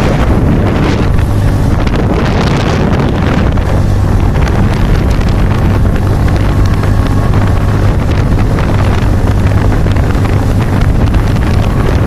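Motorcycle engine running steadily at cruising speed, with loud wind buffeting the microphone.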